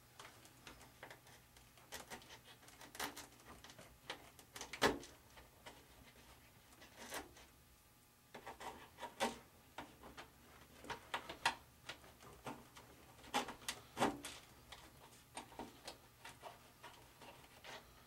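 Irregular light clicks and knocks of small parts being handled on a workbench while nylon wing-mounting screws and washers are fitted and started in their holes. One sharper knock comes about five seconds in.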